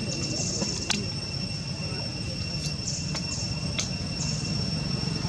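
Insects droning steadily at a high pitch, with a few scattered sharp clicks and a low rumble underneath.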